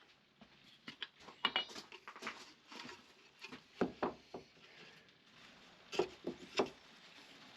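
Scattered light knocks and clicks of crockery and utensils being handled while tea is made, with one brief ringing clink about one and a half seconds in.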